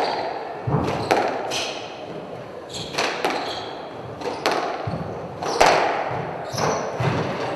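Squash rally: the ball cracks off rackets and the walls about every second or so, with short squeaks of court shoes on the wooden floor between the shots.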